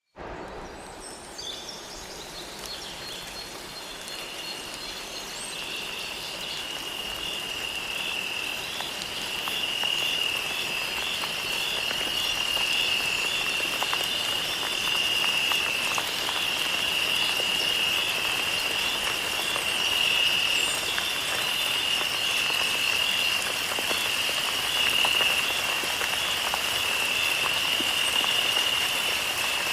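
Nature ambience: a steady, high-pitched pulsing chorus of calling animals over an even hiss. It fades in over the first ten seconds or so.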